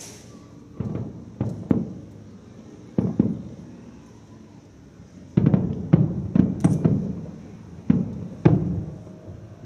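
Aerial firework shells bursting at a distance, a series of deep booms with echoing tails. A few come singly early on, then they come in a rapid volley from a little past halfway.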